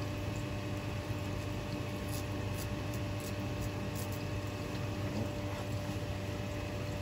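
Steady hum of room equipment, a low drone with a few constant tones over it. A few faint ticks about two to four seconds in, as fingers peel the skin off a vinegar-cured mackerel fillet.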